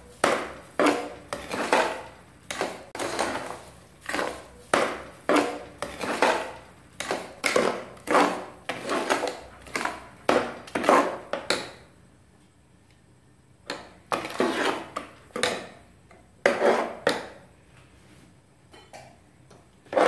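Metal ladle scraping and stirring a thick mash of cooked moong dal and sugar in an aluminium pressure-cooker pan, at roughly two strokes a second. The stirring keeps the sugar from lumping as it dissolves. It stops for a couple of seconds about twelve seconds in, then resumes with a few slower strokes.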